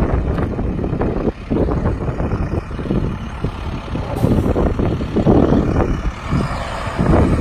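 International Durastar medium-duty diesel truck driving by, its engine running under way.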